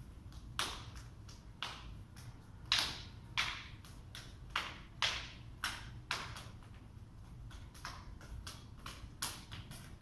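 A string of about ten sharp slaps at an irregular pace, some coming in quick pairs, as two training partners' hands and forearms strike and parry each other in a knife-flow drill.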